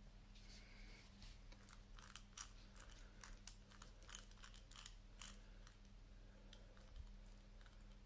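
Faint, irregular clicking of a PureGym four-wheel combination padlock's number wheels being turned by thumb as its code is reset and the wheels scrambled.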